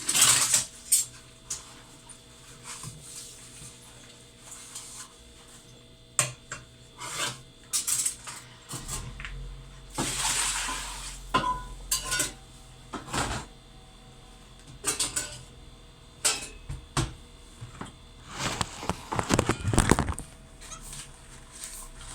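Refrigerator contents and fittings being handled: a run of sharp clinks and knocks of dishes, jars and shelves, with a louder rustle about halfway through and a flurry of clatter near the end, over a faint steady hum.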